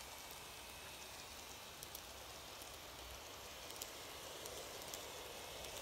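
N-gauge model trains, the nearest a 251 series Super View Odoriko, running along the track: a faint steady rushing hiss from wheels and motors, with a few small clicks. It grows a little louder near the end as the train comes close.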